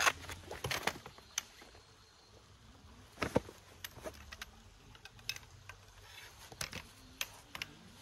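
Camping gear being handled: a string of irregular light clicks and clinks, loudest at the very start and about three seconds in, with scattered smaller ones after.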